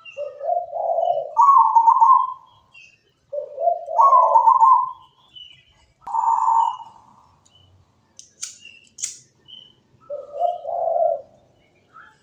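Local zebra dove (perkutut) cooing its song in repeated phrases, each a couple of low coos stepping up to a higher held note, twice, then a single higher note and, near the end, low coos again. Fainter high chirps of other birds sound behind it.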